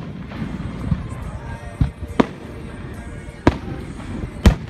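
Aerial fireworks shells bursting overhead: about five sharp bangs spaced a second or so apart, two of them close together, with the loudest near the end.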